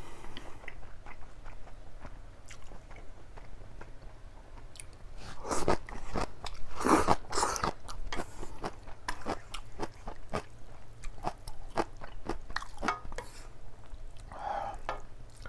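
A person eating close to the microphone: chewing and biting, with many short crunchy, wet clicks. The eating is louder for a couple of seconds about six seconds in.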